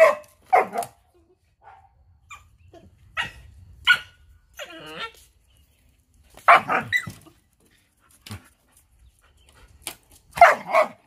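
Pet dogs barking in short, separate bursts while playing, with a quick run of barks about six and a half seconds in and another near the end.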